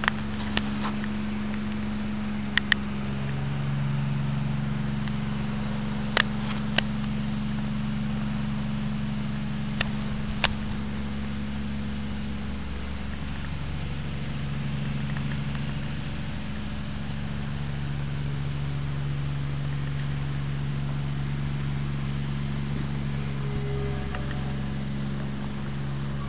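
A steady low mechanical hum, like a motor running, with a handful of sharp clicks in the first half.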